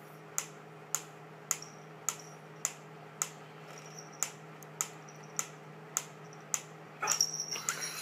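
Wooden pyramid-shaped pendulum metronome ticking steadily, a sharp tick a little under twice a second. Near the end a louder burst of noise comes over the ticking.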